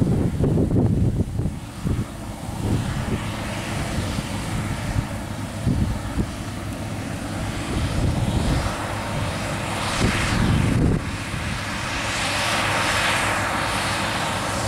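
Claas Lexion 560 combine harvester running while harvesting wheat, a steady mechanical drone that grows louder and brighter about halfway through. Wind buffets the microphone at the start.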